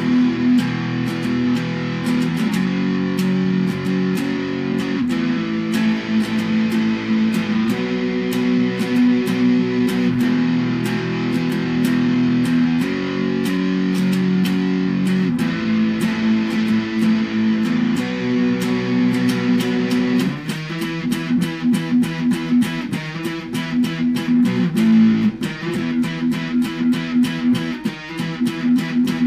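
Epiphone SG electric guitar played solo, with no backing track: held chords that change every couple of seconds, then, about two-thirds of the way in, a faster, choppier picked riff.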